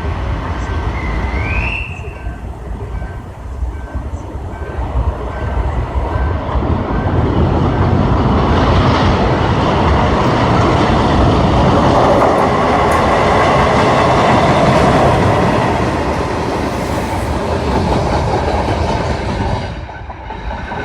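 A train passing close by, its wheels running on the rails with clickety-clack. The noise builds over the first few seconds, is loudest in the middle, and fades near the end. A short rising squeal comes about a second in.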